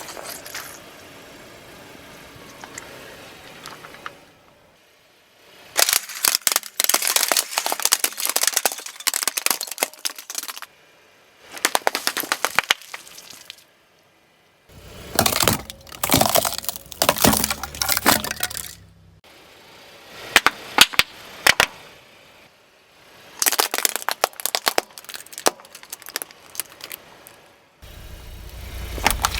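Objects crunching and cracking under a car's tyres: five separate spells of dense crackling and snapping, broken by short pauses, with a low rumble coming in near the end.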